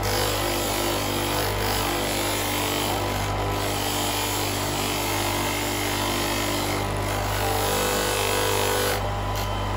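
Electric motor running steadily with a buffing wheel on its shaft, as an anodized aluminium motorcycle footstep is pressed against the spinning wheel to polish it, giving a steady rubbing hiss over the motor hum. The rubbing eases about nine seconds in.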